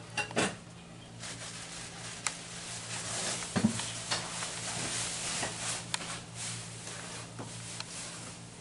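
Rustling and a few light clicks and knocks as stainless steel cookware is rummaged for and handled, over a steady low hum.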